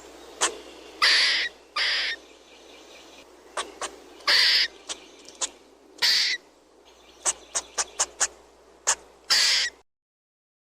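Squirrel calling: about five harsh barks of roughly half a second each, scattered among quick short chips, over faint steady background noise. All of it stops about a second before the end.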